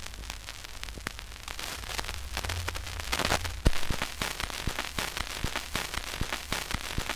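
Surface noise of a 78 rpm record played with the stylus past the end of the recording: steady hiss and crackle, with sharp clicks that become frequent and regular in the second half, one louder click near the middle. A faint low hum comes and goes.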